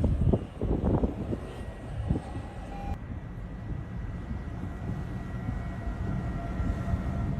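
Tornado wind as a steady low rumble, with a few short knocks in the first two seconds.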